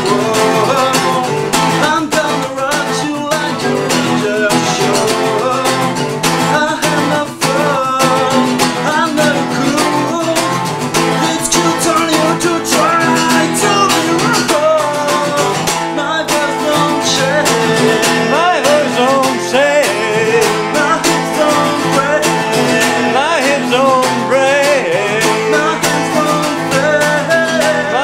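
A man singing over a fast, steadily strummed acoustic guitar.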